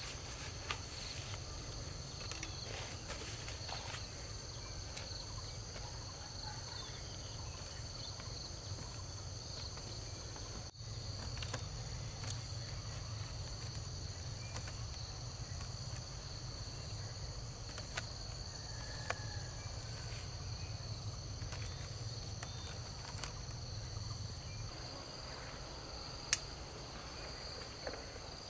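Steady chorus of insects, a continuous high-pitched drone, with scattered light clicks and taps over it; one sharper click about two seconds before the end.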